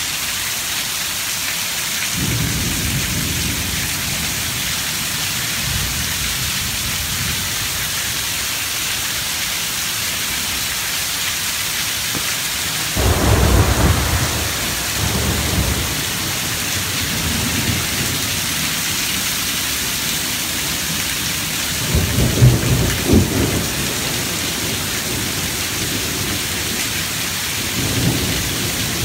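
Rain falling steadily in a thunderstorm, with rolls of thunder rumbling several times. The loudest rolls come about halfway through and again about three quarters of the way in.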